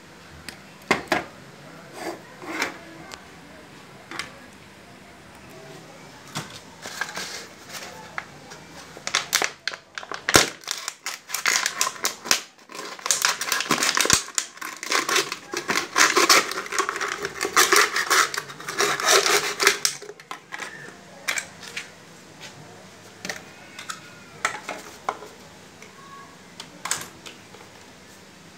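A few sharp snips of cutting pliers through thin wire in the first few seconds, then an empty plastic water bottle crackling and crinkling for several seconds as it is handled and squeezed, followed by scattered light clicks of handling.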